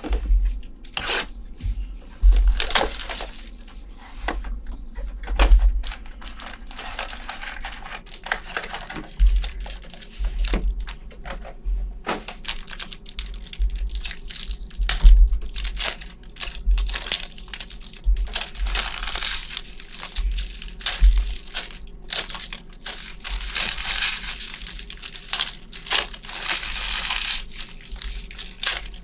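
Football trading card packs being torn open and their wrappers crinkled, with cards and packs handled in irregular crackles and repeated dull knocks.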